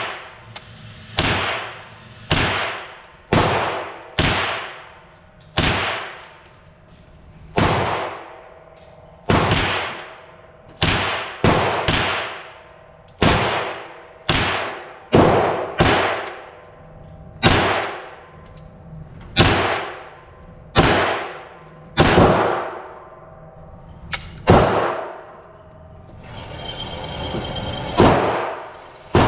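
9mm AR-9 carbine with a blowback Foxtrot Mike FM-9 16-inch upper firing 115-grain FMJ rounds in semi-auto: about two dozen shots at roughly one a second, each with a short echo off the concrete range walls.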